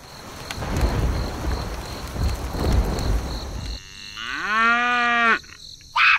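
A cow mooing once, a call of about a second that rises in pitch and then holds, following a few seconds of low rumbling noise. A short high sound that swoops up and down comes right at the end.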